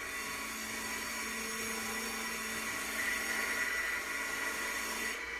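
A small electric motor, such as a handheld power tool or blower, runs steadily with a faint hum, then cuts off about five seconds in.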